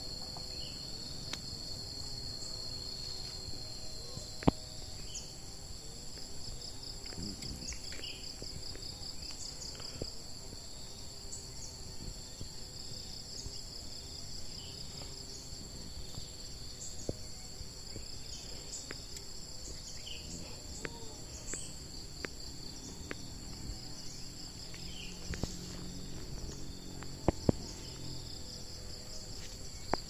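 Steady high-pitched insect chorus of forest crickets or cicadas, with a pulsing trill for stretches in the middle and scattered short bird chirps. A few sharp clicks stand out, the loudest about four seconds in and several more near the end.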